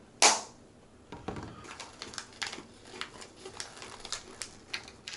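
A sharp plastic crack about a quarter second in as a yogurt cup is snapped off a multipack, then a run of small irregular crinkles and clicks from a plastic snack packet of nuts being handled and torn open.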